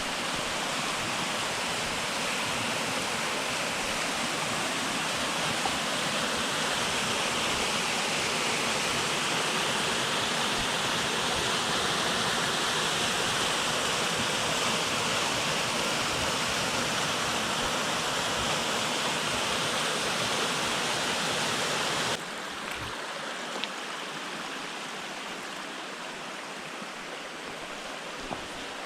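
Falling water rushing steadily from a waterfall. About two-thirds of the way through it cuts suddenly to a quieter, softer flow of water, with a couple of faint clicks.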